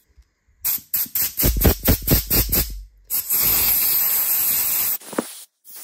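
Compressed air and aerosol cleaner blown through the plastic jet piece of a Briggs & Stratton carburettor to clear its passages of dirt. There are about eight quick hissing spurts, then a steady blast from a compressed-air blow gun for about two seconds that stops abruptly near the end.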